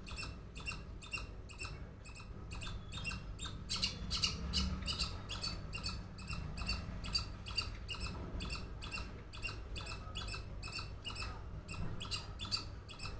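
A squirrel calling with a fast, steady run of short, high-pitched chirps, about four a second, kept up without a break.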